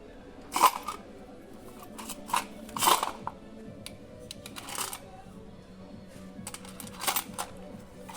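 A series of short, sharp knocks and clinks, as of tools and metal engine parts being handled and set down. The loudest come about half a second in and about three seconds in. Quiet background music plays steadily underneath.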